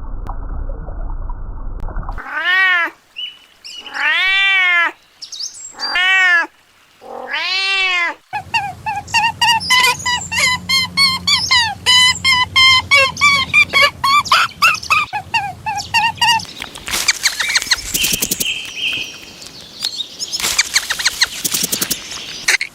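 A cat meowing four times, each meow rising and then falling in pitch. The meows are followed by a long run of many short, quick, high calls, then a stretch of crackly noise.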